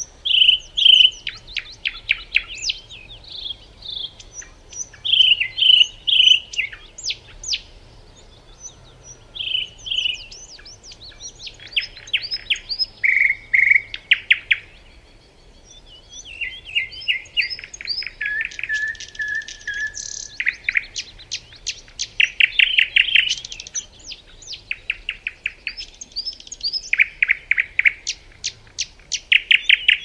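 Songbird singing: a varied run of clear whistled notes and fast trills of rapidly repeated notes, in phrases a second or two long with short pauses between them, including one longer, lower held note just before the middle.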